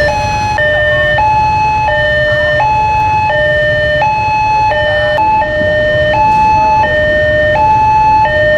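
Railway level-crossing warning alarm: an electronic two-tone signal alternating steadily between a low and a high note about every 0.7 s, warning that a train is approaching and the crossing is closed. Beneath it is a low rumble of idling road traffic.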